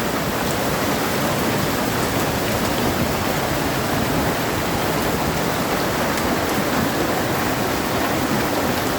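Hail and heavy rain coming down hard: a dense, steady hiss with a few sharp ticks of hailstones striking.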